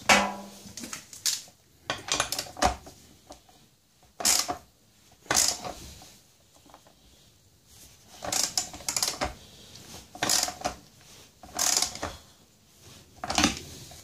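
Socket ratchet clicking in short bursts every second or two, tightening the heater element's clamp bolt on a washing machine tub.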